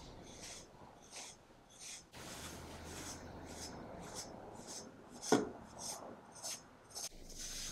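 EquiGroomer de-shedding brush raking through a long-haired cat's coat: faint short rasping strokes, about two a second, pulling out loose undercoat. One sharper thump about five seconds in.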